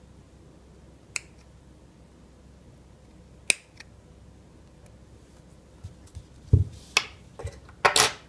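Two sharp snips of scissors cutting off excess material, about a second in and again about three and a half seconds in. Near the end come a soft thump and a few quick clicks of small items being handled.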